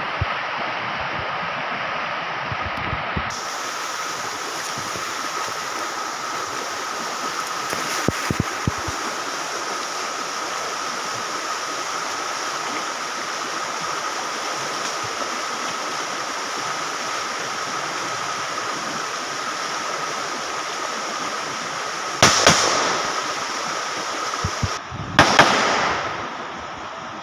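Steady rush of a rocky jungle stream, with a few sharp bangs of rifle fire: light cracks about eight seconds in, and two louder shots near the end.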